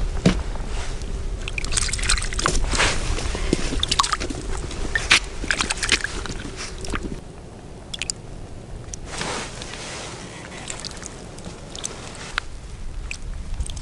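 Handling noise at an ice-fishing hole: rustling, small clicks and sloshing of slushy water as a short winter rod is jigged over the hole. A low rumble runs under it and drops away about seven seconds in, after which it is quieter.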